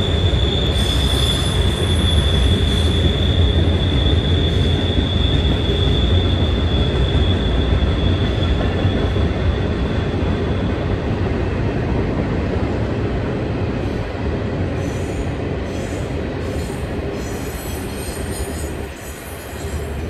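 Freight train cars rolling past: a steady heavy rumble of wheels on rail with a thin, steady high wheel squeal that fades out about halfway. After that come scattered clicks and clatter, and the rumble slowly dies down as the end of the train approaches.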